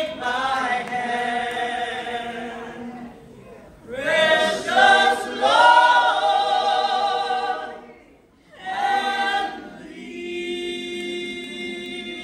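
Mixed men's and women's vocal group singing a sacred song a cappella in harmony, in long held chords. The singing breaks off briefly about eight seconds in, then settles into a quieter sustained chord near the end.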